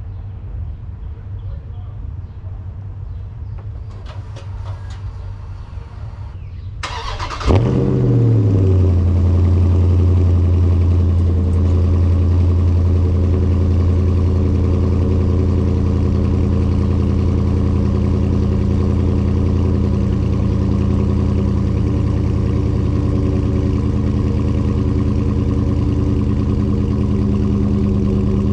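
2021 Dodge Charger Daytona 392's 6.4-litre HEMI V8 cold-starting: after several seconds of low background rumble, a brief crank about seven seconds in catches with a sharp flare, then settles into a loud, steady cold-start high idle.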